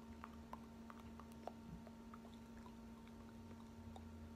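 Near silence: room tone with a steady low hum and a few faint, scattered clicks.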